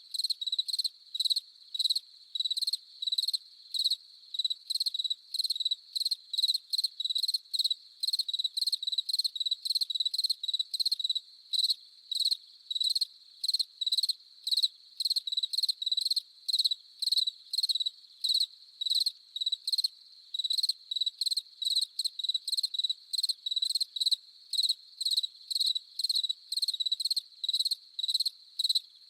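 A single cricket chirping close up in an even, unbroken train of short high chirps, about two to three a second, with a faint chorus of other crickets behind.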